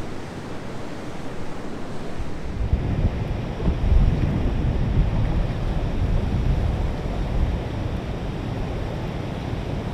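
Wind buffeting the microphone: a gusty low rumble with no engine tone in it, heavier from about two and a half seconds in.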